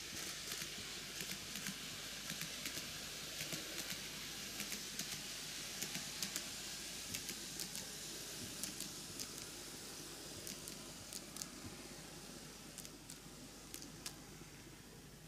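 N-gauge TOMIX Kintetsu 80000 series Hinotori model train running on sectional track: a steady light hiss of wheels on the rails with many small, irregular clicks as the wheels cross the rail joints, slowly growing fainter.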